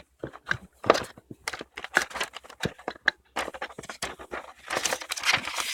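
Small cardboard boxes being handled and pried open by hand: a quick run of scratches, taps and scrapes, busier in the second half.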